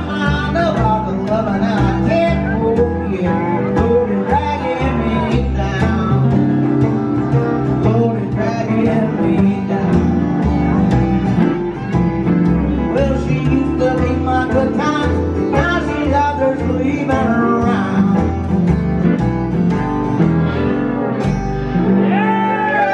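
A live honky-tonk country band plays: a strummed acoustic guitar, a plucked upright bass and a lap steel guitar over drums. The bass drops out near the end.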